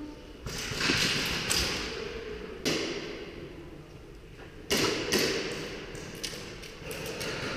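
Airsoft gunfire in several sharp bursts, about half a second, three seconds and five seconds in, each ringing out and dying away in a large echoing hall.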